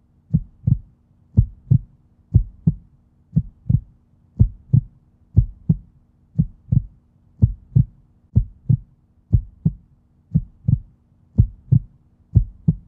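Heartbeat sound effect: a slow, steady run of double thumps, about one lub-dub a second, over a faint steady low hum.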